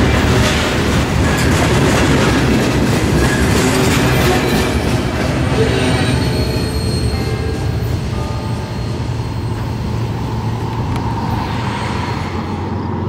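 Herzog ballast hopper cars of a freight rock train rolling past on jointed track, with wheel and rail noise and thin, high wheel squeal from about halfway through. The sound eases off near the end as the train draws away.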